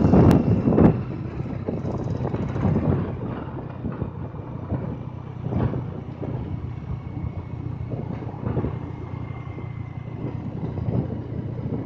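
A moving vehicle's engine hum and road noise while driving, with wind buffeting the microphone loudly in the first second.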